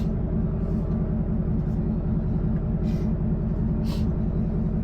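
A 6.2-litre V8 engine idling with a steady low rumble.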